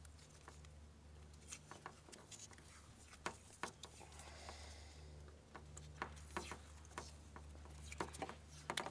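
Scattered small crackles and clicks of tape being unrolled and wrapped around wiring plugs, over a faint low steady hum.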